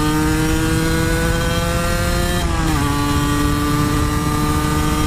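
Cagiva Mito 125's two-stroke single-cylinder engine pulling hard under load, its pitch climbing steadily. About two and a half seconds in it falls sharply and then holds steady, with wind rushing over the microphone throughout.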